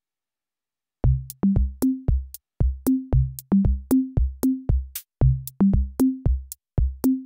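Background music: an electronic drum-machine beat with kick drums and a short bass line stepping up in pitch, repeating every couple of seconds and starting about a second in.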